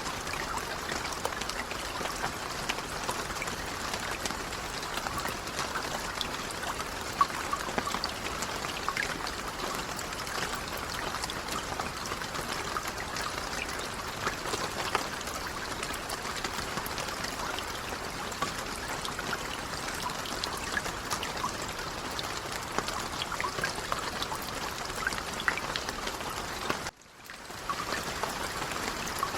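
Light rain falling steadily, a dense patter of small drops over an even hiss. Near the end the sound cuts out for a moment, then comes back.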